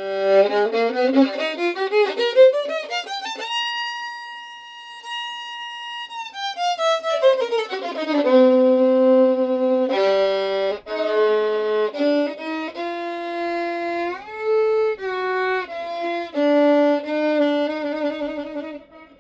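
Solo violin being improvised: a quick climbing run up to a long held high note, a falling run back down, then a string of lower notes and short phrases.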